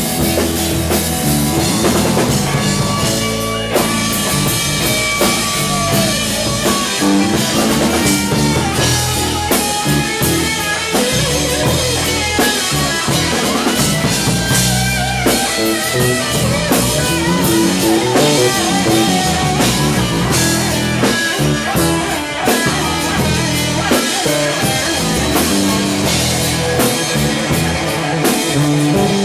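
Live rock band: electric guitar played over a drum kit, with no vocals.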